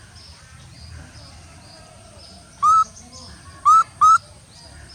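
Three short, loud squeaky calls, each bending upward in pitch, the last two in quick succession, from an animal or bird. Behind them, a faint high chirping repeats about twice a second.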